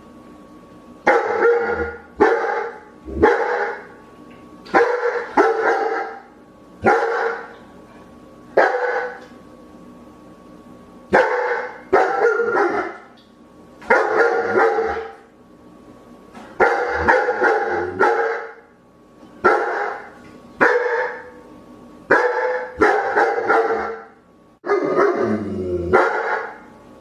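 Dog barking repeatedly, about twenty loud barks, some single and some in quick pairs or triplets, with short pauses between.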